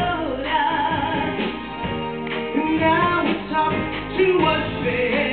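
A female and a male vocalist singing a duet over a live band.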